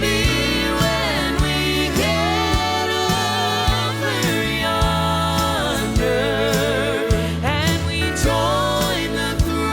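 Southern gospel song: sung vocals with long, wavering held notes over a full band accompaniment.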